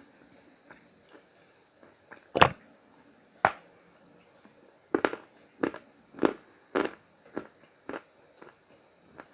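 A person biting and chewing Khrapovsky chalk paste, with dry crunches: a loud bite about two seconds in, another a second later, then a run of crunching chews about twice a second.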